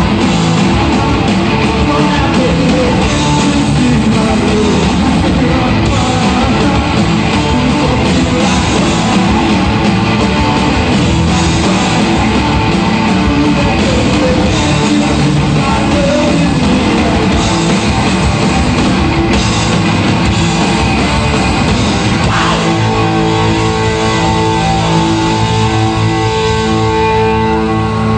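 Live rock band playing loud: distorted electric guitar, bass and drums, with a male voice singing. About 22 seconds in, the beat drops away and held chords ring out.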